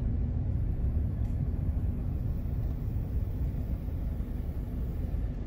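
Steady low rumble of a car's engine and tyres, heard from inside the cabin as the car drives slowly.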